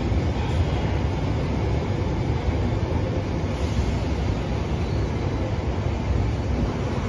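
London Underground Bakerloo line 1972 Stock tube train running along the platform, a steady low rumble of wheels and motors.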